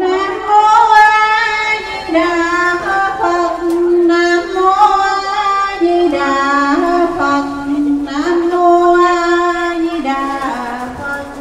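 A woman's voice singing a slow melody in long held notes, stepping from pitch to pitch with short breaks between phrases.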